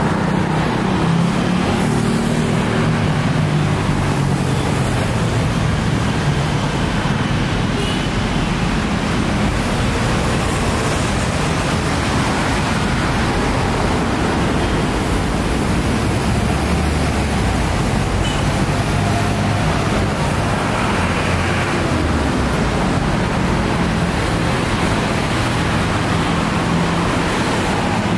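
Steady city traffic noise from a busy multi-lane avenue: cars and buses passing, with a low engine hum that swells near the start and again past twenty seconds.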